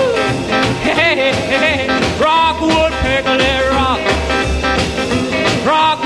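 Background music: an upbeat rock-and-roll song with a steady drum beat and long held, wavering notes.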